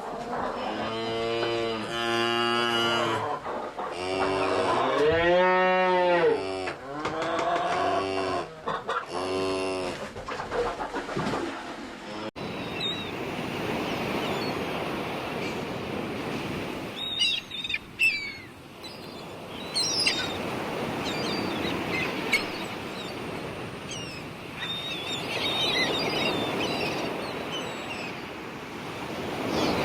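Cattle mooing, several long drawn-out calls over about twelve seconds, one rising and falling in pitch. Then the sound cuts to a steady wash of surf with short high bird calls.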